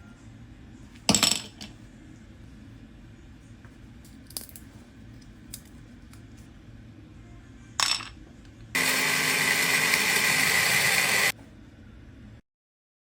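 Two sharp ringing clinks of kitchenware, about a second in and again near eight seconds, with a few light taps between. Then a loud steady rushing noise for about two and a half seconds that starts and stops abruptly, and near the end the sound cuts out entirely.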